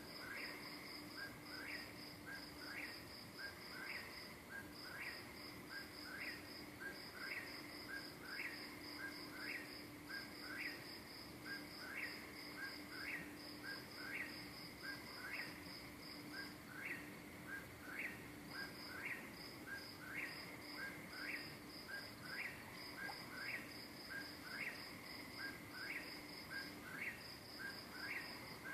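Calling insects: a high, fast pulsed trill in short repeated bursts, with a lower chirp repeating about once a second, over a faint steady hum.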